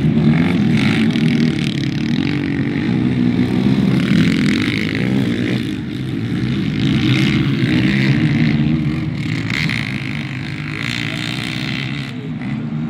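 Engines of several racing quad bikes running hard on a dirt track, revving up and easing off in repeated surges.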